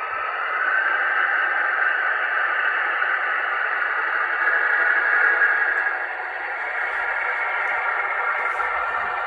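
Märklin model V 320 locomotive running, a steady hum that swells about half a second in and eases off about six seconds in.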